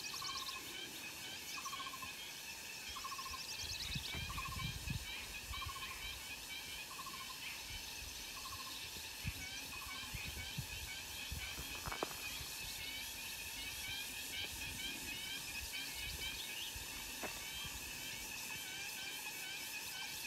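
Countryside ambience of birds and insects. One bird repeats a short note about every two-thirds of a second for the first eight seconds, other birds chirp higher, and insects drone steadily underneath.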